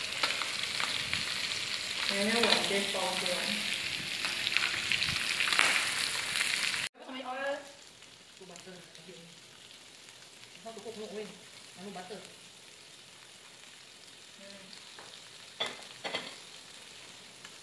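Meat and seafood sizzling on an electric tabletop grill plate. It is loud for about the first seven seconds, then cuts abruptly to a quieter sizzle, with faint voices and a couple of light taps near the end.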